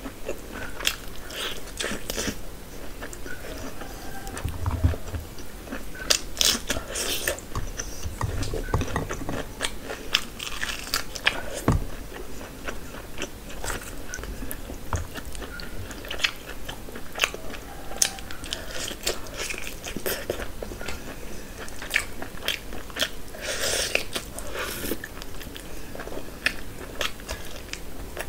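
A person eating mutton curry and puri by hand close to the microphone: biting and chewing, with many irregular crunchy clicks.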